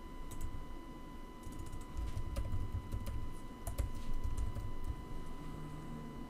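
Typing on a computer keyboard: an irregular run of keystrokes, densest in the middle, that stops about four and a half seconds in.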